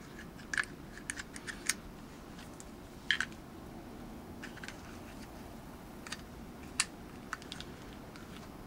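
Scattered light clicks and taps of small pistol parts being handled and worked together by hand: the slide stop lever being fitted into a Grendel P12 frame, with a slightly louder clack about three seconds in.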